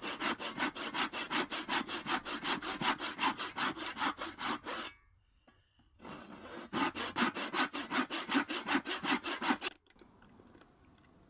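Hand saw cutting across a wooden handle blank in quick, even back-and-forth strokes. The strokes stop about five seconds in and resume after a short pause, then stop near the end. These are depth cuts that guide the chisel when the handle is roughed out.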